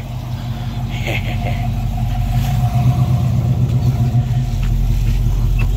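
Classic Ford Mustang convertible's engine idling steadily, growing louder as it is approached.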